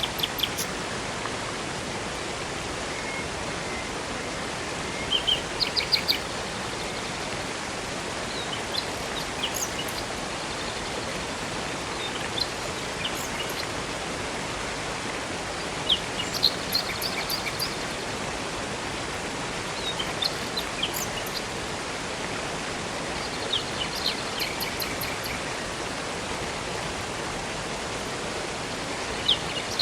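Steady rushing of a river and waterfall, with songbirds chirping and trilling in short bursts every few seconds over it.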